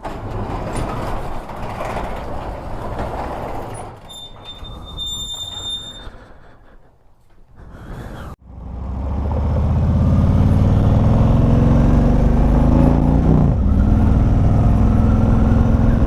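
Harley-Davidson CVO V-twin engine running steadily and loud, coming in a little past halfway. Before it there is a quieter stretch of mixed noise with a high, steady electronic tone lasting about two seconds.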